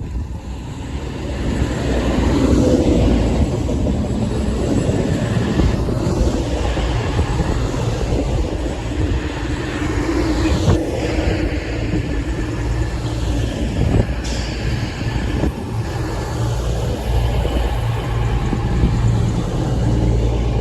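Train running past on the rails: a steady rumble of wheels with a low hum and a few sharp clicks, going on throughout.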